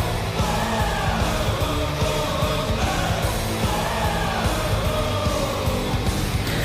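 Hard rock or heavy metal song with yelled vocals over distorted guitars, the kind of goal song played after an NHL goal horn.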